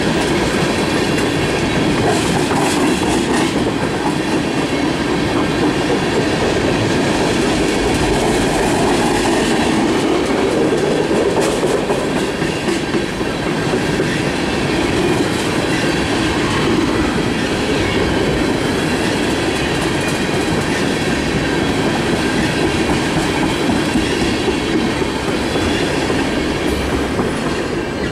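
Freight train of tank cars rolling past close by: the steady noise of steel wheels on the rails, easing off at the very end as the last car goes by.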